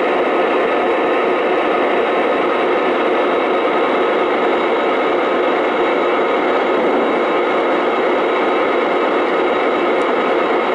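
Lionel O-gauge model trains running on three-rail track: a steady, even rumble of wheels and motors.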